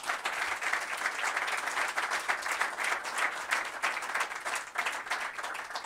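Audience applauding: many hands clapping at once, starting right away and thinning out near the end.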